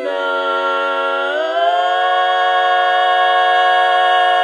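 Female a cappella vocal quartet holding a four-part chord without words. About a second and a half in, the voices slide up together to a higher chord and hold it.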